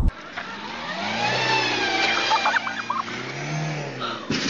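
Car engine revving, its pitch rising and then falling back, with a few short squeaks in the middle and a sharp knock near the end.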